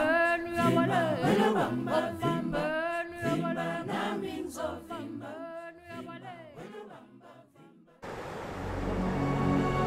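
Women's a cappella choir singing in harmony, fading out over several seconds. About eight seconds in it cuts abruptly to a steady hiss with a low hum.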